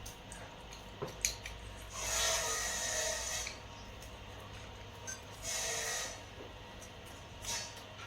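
Close-miked eating sounds: a few sharp clicks in the first second and a half, then two rasping bursts of food noise, each lasting about a second.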